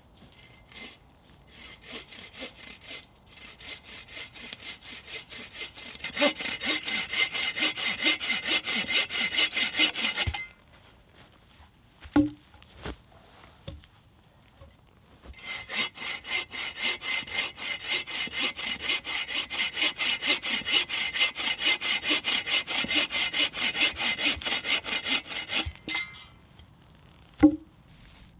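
A bow saw cutting through a branch laid across a log, in two bouts of rhythmic back-and-forth strokes. The first bout starts softly and grows louder. A couple of wooden knocks fall in the pause between bouts, and a sharp knock near the end is the loudest sound.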